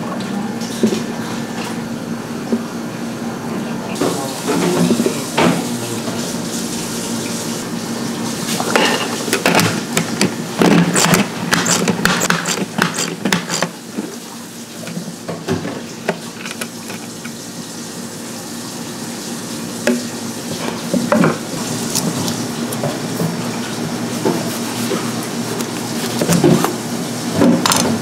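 Kitchen work at a sink: water running over a steady hum, with irregular clinks and knocks of dishes and utensils. The clatter is busiest in the middle and comes again briefly near the end.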